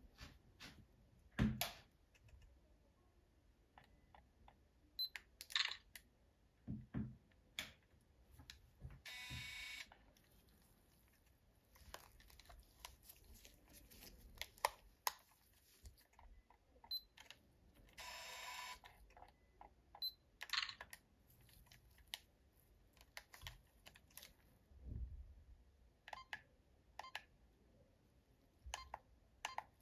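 A Canon PowerShot A640 compact camera being handled: a scatter of small plastic clicks from its buttons and the flip-out screen's hinge, a few short high beeps, and two whirs of about a second each, about 9 and 18 seconds in.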